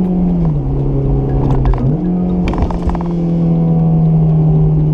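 Honda S2000's four-cylinder engine, fitted with a K&N intake, running at steady high revs; its pitch drops in the first half second, climbs back just before two seconds in and then holds steady.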